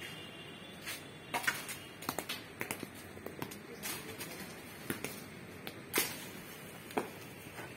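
Footsteps on a concrete path: light taps and scuffs at an uneven pace.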